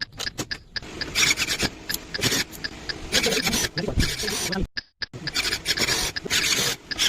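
Irregular rubbing and scraping of packaging being handled, with short clicks and a brief pause about four and a half seconds in.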